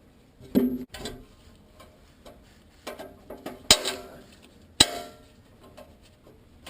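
Hand tools knocking against metal while the exhaust flange bolts are worked on to fit a new gasket: a handful of sharp metallic clanks and clicks, two louder ones about halfway through.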